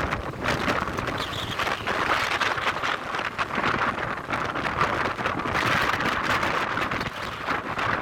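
Heavy monsoon rain and gusting wind, the wind buffeting the microphone in uneven surges.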